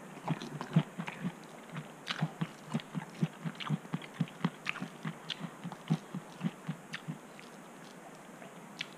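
An orange being peeled by hand, the peel tearing off with a few small crisp snaps, over soft steady chewing thumps about two or three a second.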